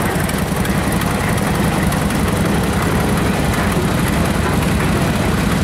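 Antique farm tractor's engine running steadily at low speed as it passes, pulling a loaded wagon, with a low, fast, even beat.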